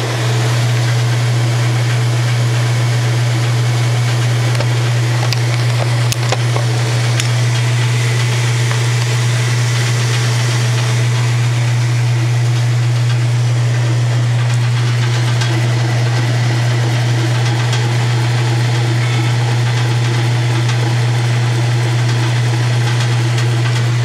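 A 1986 Kenmore 60 Series direct-drive washer's motor and transmission running through the spin cycle, with a steady, loud low hum.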